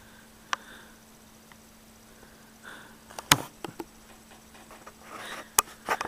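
A faint steady low hum with a couple of soft breaths, a single click about half a second in, then a cluster of sharp clicks and taps from about halfway, with light rustling near the end.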